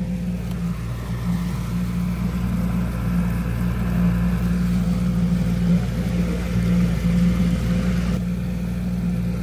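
Outboard motor of a small motorboat running steadily under way, a constant low hum with an even hiss over it.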